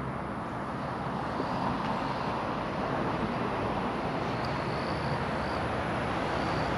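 Steady outdoor background noise, an even rushing hiss with no single clear source, with a few faint, short, high chirps over it.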